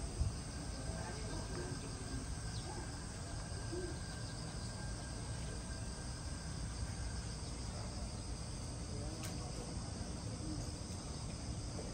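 Insects chirring steadily in high tones over a low outdoor background rumble.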